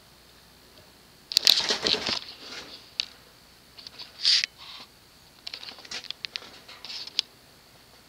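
Kenroy spinner ceiling fan coasting down after being switched off, its faint whir under irregular crinkling and rustling noises. The loudest is a crinkly burst lasting about a second, starting a little over a second in, followed by a shorter one near four seconds and a quick run of clicks near the end.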